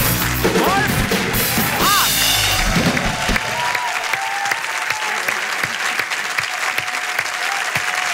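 House band with drum kit, electric guitar and trumpet playing an upbeat tune over audience applause. The band stops about three and a half seconds in, leaving the applause going on its own.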